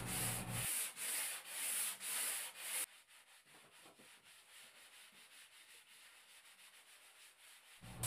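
Hand sanding block rubbing back and forth on a cedar board, in even strokes about two a second. This is the final pass lengthwise with the grain to take out the scratches. The strokes stop about three seconds in, and the rest is near silence.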